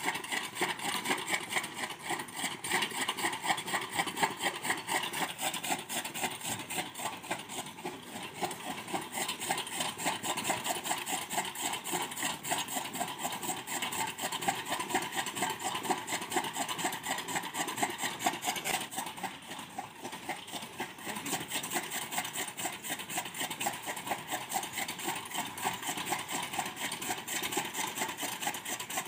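Animal-powered chaff cutter running, its flywheel blades chopping fodder and its gear drive turning in a fast, even, repeating rhythm.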